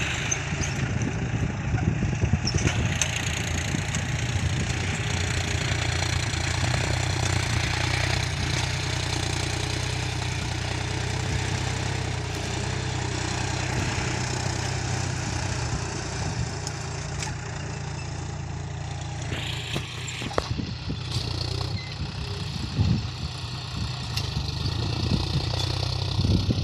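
Farm tractor's diesel engine running steadily under load while pulling a disc harrow through the soil, a continuous low hum. A few brief sharp clicks about two-thirds of the way through.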